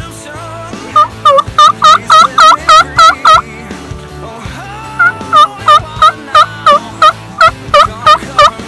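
Wild turkey yelping: two long runs of loud, evenly spaced yelps, about three a second, each note breaking in pitch, with a short pause between the runs. Faint background music runs underneath.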